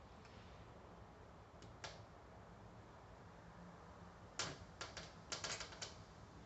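Sharp clicks and light clatter of hand tools being fitted together: one click about two seconds in, then a quick run of about eight clicks near the end, as the Time-Sert kit's drill guide and T-handle are set on the compressor's bolt hole.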